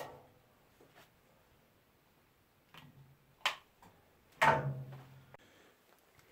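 A few scattered light clicks and knocks of things being handled, the loudest a knock with a short low rumble about four and a half seconds in.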